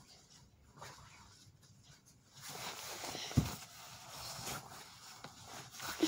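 Rustling of a child's coat fabric as it is pulled on over the shoulders, starting about two seconds in, with a single thump partway through.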